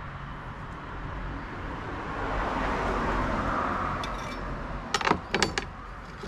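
A soft rushing noise swells and fades over a couple of seconds. About five seconds in comes a quick run of sharp knocks and clinks: a kitchen knife and butter being handled against a wooden cutting board and a glass jug.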